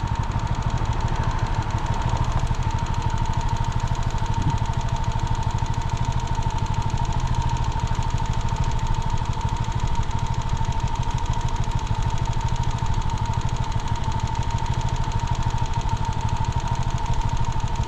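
A vehicle engine running steadily, a low rumble with a constant high-pitched whine over it.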